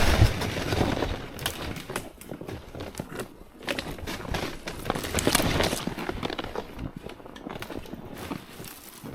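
Crunching, crackling footsteps on hard crusted spring snow, coming in uneven surges.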